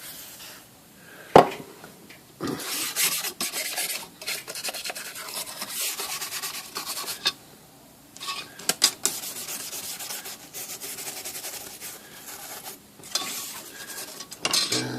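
A rag rubbed hard back and forth over a typewriter cover panel, working in oil, in long scratchy strokes with short pauses. A sharp knock comes about a second in.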